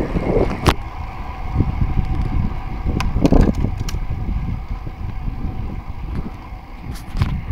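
Wind buffeting the microphone and road rumble from riding along an asphalt lane on a bicycle, a steady noisy rush. A few sharp clicks break in now and then.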